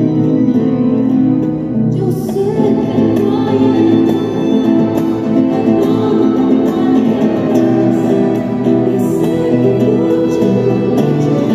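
Small acoustic ensemble of violin and two acoustic guitars playing, with a woman's singing voice joining about two seconds in.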